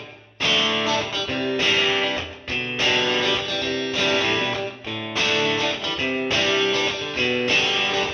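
Intro music: guitar chords strummed in a steady rhythm, changing about once a second.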